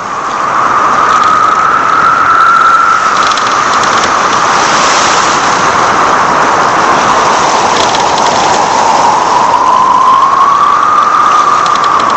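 Loud howling wind: a steady rushing hiss with a whistling tone that slowly rises and falls.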